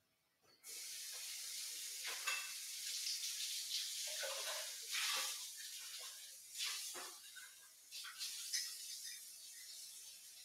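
Kitchen noise from across the room: a steady hiss that starts suddenly about a second in, with scattered clinks and knocks through it.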